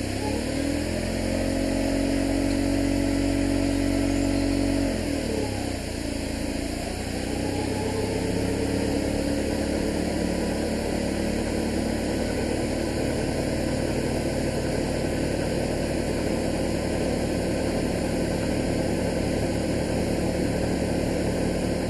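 Class 33 diesel locomotive's Sulzer eight-cylinder engine, on a failed locomotive, running up with a rising whine and holding steady. It drops back about five seconds in, then runs up again and holds, making a noise like a hoover.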